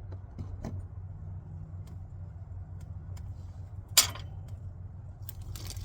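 Small hard clicks from an oil filter and its plastic housing cap being handled and separated, with one sharp clack about four seconds in and a quick run of rattling clicks near the end, over a steady low hum.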